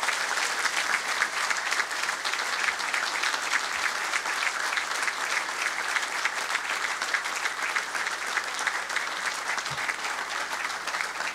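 Large audience applauding, a dense steady clapping that holds at one level without letting up.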